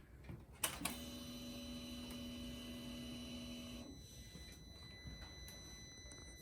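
Can-Am Spyder switched on before starting: a click, then a steady electric hum for about three seconds that cuts off. The engine is not yet running.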